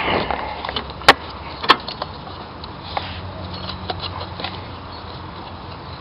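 Hands working a timing belt and its tensioner pulley off an engine. A brief rustle opens it, then come two sharp clicks about a second and a second and a half in, and a few light ticks.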